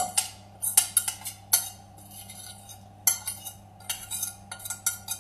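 A metal fork scraping and tapping against a plate in an irregular run of short, sharp strokes as diced ham is pushed off it into a pastry case, over a faint steady hum.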